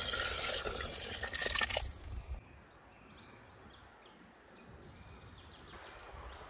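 Stock poured in a thin stream into a cast-iron pot of simmering stew, splashing steadily until it stops about two seconds in. After that only quiet outdoor ambience with a few faint high chirps.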